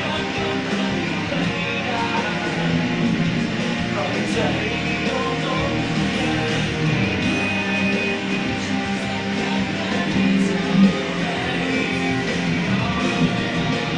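Guitar played live as a steady run of chords and notes, recorded through a smartphone's built-in microphone.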